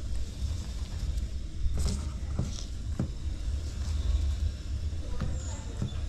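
Gas burner on a gas cylinder running under a cooking pot with a low, steady rumble, and a few light clicks and knocks of kitchen items.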